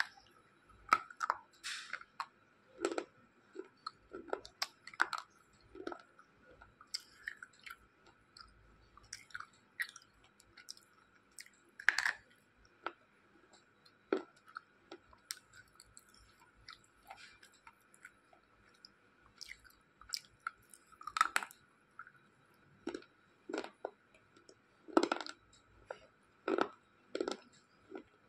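A person biting and chewing slate pencils close to the microphone: irregular crisp crunches that come in short clusters with pauses between.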